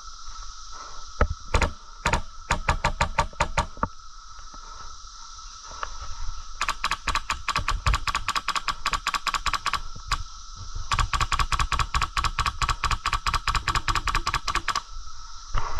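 Airsoft gun firing on full auto: a few single shots, then three bursts of rapid clicking shots at about ten a second, the second and third each several seconds long.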